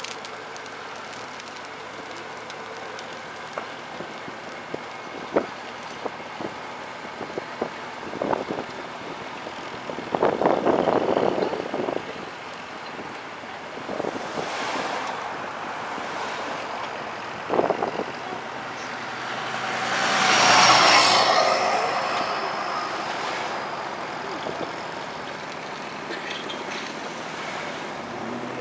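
Steady outdoor noise with scattered knocks and rustles. A loud swell rises and fades about twenty seconds in, like a road vehicle passing.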